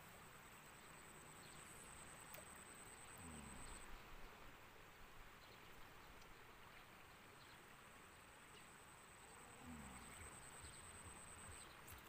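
Near silence: faint outdoor ambience with a thin, steady high whine that stops about four seconds in and comes back after about six seconds.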